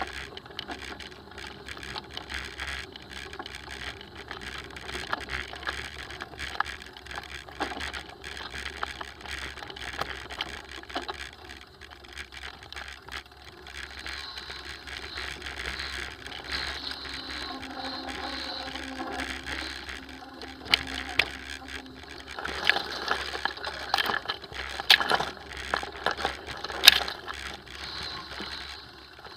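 Mountain bike ridden over a rough dirt singletrack: the bike rattles over the bumps and the rear hub's freewheel clicks while coasting. From about two-thirds of the way through, the knocks and rattles get louder and come thicker.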